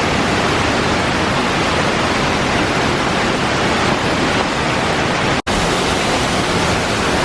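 Steady rushing roar of a waterfall, with no rhythm or pitch, cut off for a split second about five and a half seconds in.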